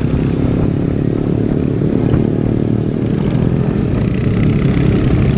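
Royal Enfield Hunter 350's single-cylinder engine running steadily, its exhaust note even, with no revving up or down.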